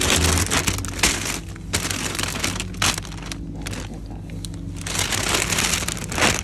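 Paper bakery bag with a plastic window crinkling and rustling in irregular bursts as it is handled close to the microphone and filled with pastries.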